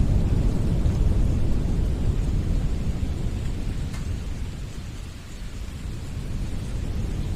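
Wind blowing in gusts, mostly a deep low rumble. It eases off about five seconds in and builds again near the end.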